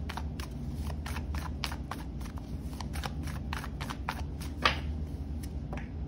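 A deck of tarot cards being shuffled by hand: a rapid, irregular run of soft card clicks and slaps, with one louder snap about two-thirds of the way through, over a steady low hum.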